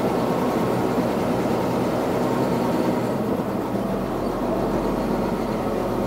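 John Deere 8130 tractor's six-cylinder diesel engine running steadily under way, heard from inside the cab, easing slightly about halfway through.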